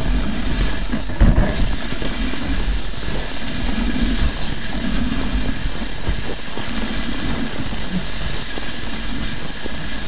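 Wind buffeting the microphone: a steady, loud rumbling hiss, with scattered light knocks from the rider's travel along the snowy trail.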